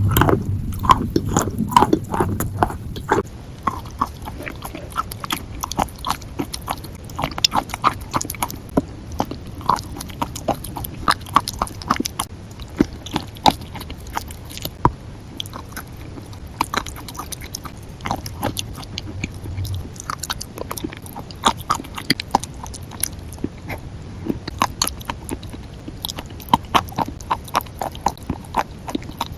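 Chewing crunchy food: a long, irregular run of sharp crunches, several a second, loudest in the first few seconds.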